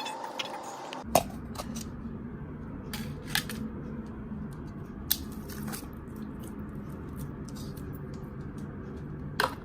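Slime being squished and pulled by hand, giving a few sharp clicks and pops, the loudest about a second in and near the end, over a steady low hum.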